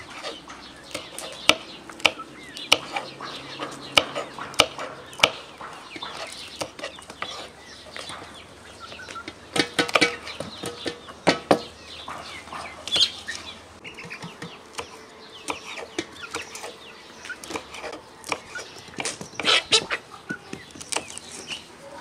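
Kitchen knife chopping green chili peppers on a wooden cutting board: sharp taps at an uneven pace, coming in bursts, with chickens clucking in the background.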